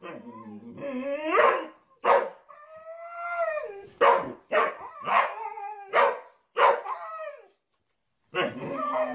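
A boxer and a husky barking and howling at each other in play: short sharp barks mixed with long drawn-out calls that slide up and down in pitch.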